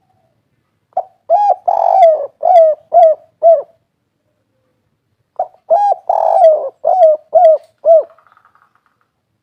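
Spotted dove (derkuku) cooing its 'kuk 3' song: two phrases of about six coos each, a couple of seconds apart.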